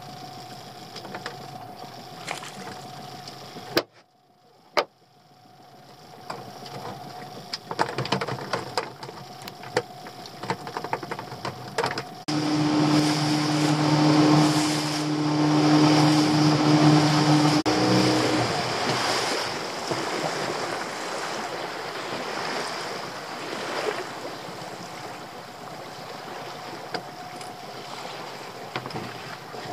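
A small outboard motor drives an open fishing boat through the sea, with water washing along the hull. A steady engine hum is loudest for several seconds near the middle, then the sound eases back. The sound drops out briefly about four seconds in.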